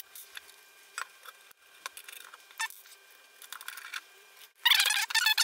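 Small metal mounting screws and their plastic bag being handled on a desk: scattered light clicks, then a louder rattling, crinkling burst near the end.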